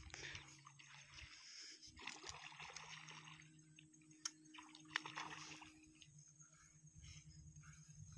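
Faint splashing and sloshing of a hooked fish thrashing at the surface as it is played on a rod, in bursts about two and five seconds in, with two sharp clicks between.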